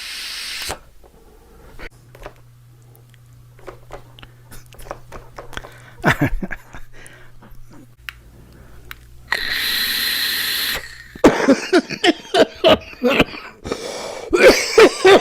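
Electronic cigarette firing with a steady hiss and faint whine for a second or two, then a man coughing hard in a long run of many rapid coughs through the last few seconds.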